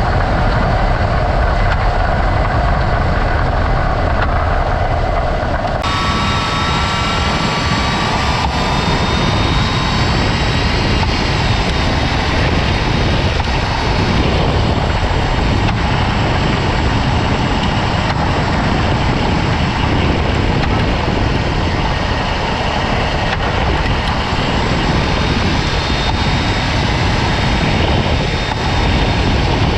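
Steady running and road noise of a 2017 Jeep Cherokee KL on the move, growing brighter about six seconds in.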